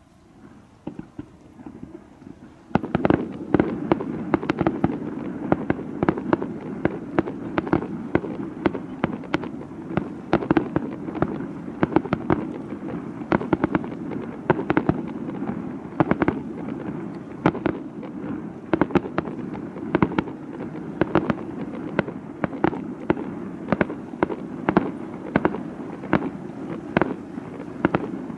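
Fireworks display: a few scattered bangs, then about three seconds in a sudden dense barrage of bursts, many bangs a second over a steady low rumble, running on without a break.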